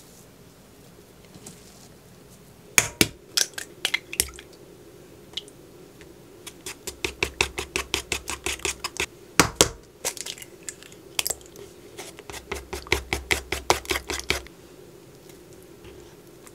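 Wooden chopsticks beating an egg with flour in a wooden bowl, clicking against the bowl at about five or six strokes a second. The beating comes in two runs with a single loud knock between them, after a few sharp knocks about three seconds in.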